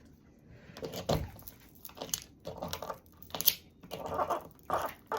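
Hand leather hole punch being forced through a leather strap on a mat: a knock about a second in, then a series of crunching, scraping pushes. The punch is getting dull and struggles to cut through.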